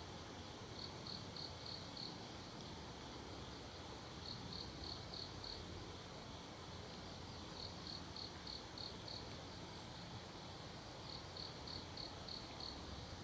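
Crickets chirping faintly: short trains of about six quick, high pulses that repeat every three to four seconds, over a steady low hiss.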